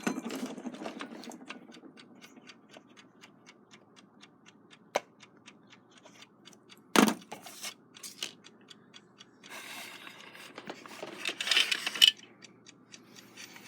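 Westclox Big Ben Chime Alarm movement ticking steadily, about five ticks a second, while its hands are worked on. A sharp click comes about five seconds in and a louder knock about seven seconds in. Near the end comes a scraping rustle, the loudest sound, as the hour hand is levered with pliers and paper.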